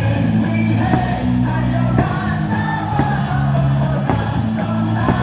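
Cheering music playing over the ballpark loudspeakers with a steady beat, the crowd singing and shouting along.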